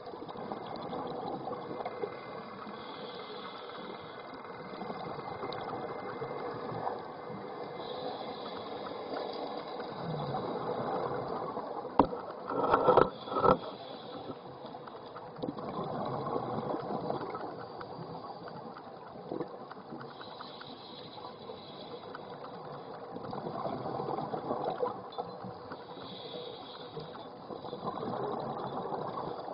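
Underwater sound on a scuba dive: a diver's regulator breathing and exhaled bubbles, rising and falling in slow swells every few seconds. A few sharp knocks come close together about twelve seconds in.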